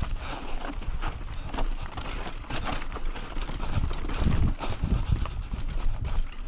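Mountain bike rattling and knocking over a rough, rocky trail: a fast irregular run of clatters from the bike and tyres hitting stones, with heavier low thumps about four to five seconds in.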